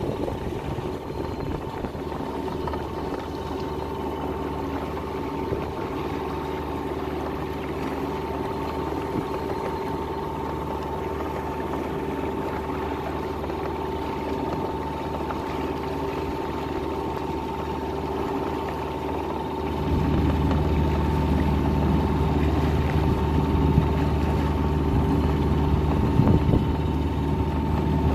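Sailboat's engine running steadily while motoring under way: an even drone that grows louder and deeper about twenty seconds in.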